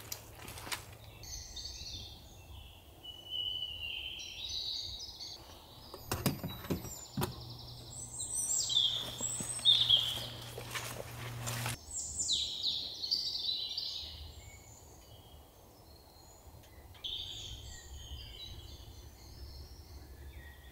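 Songbirds singing in repeated high warbling phrases, with a few sharp knocks about six seconds in and a stretch of faint hiss and low hum that cuts off abruptly near twelve seconds.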